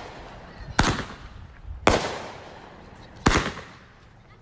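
Consumer fireworks going off: three loud bangs about a second apart, each trailing off in an echo.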